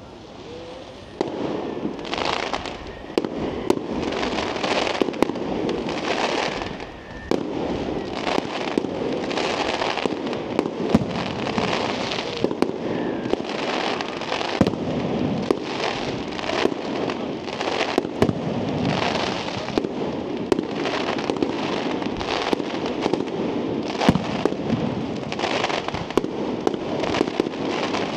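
Fireworks display: a continuous barrage of shell bursts, many sharp bangs over dense crackling, picking up about a second in.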